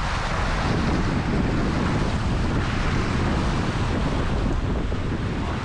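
Wind buffeting the microphone over the steady rush and splash of the bow wave along the hull of a small sailing yacht running fast under gennaker.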